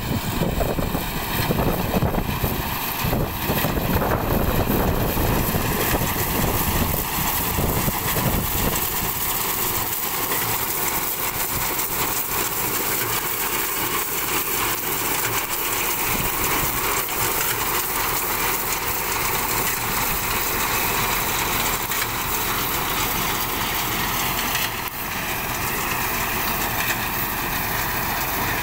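Tractor engine running steadily while driving a tractor-mounted BCS reaper binder, with a heavier low rumble for the first several seconds.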